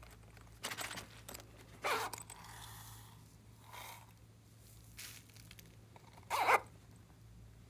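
Hands handling small craft items: a handful of short rustles and scrapes, the loudest about six seconds in.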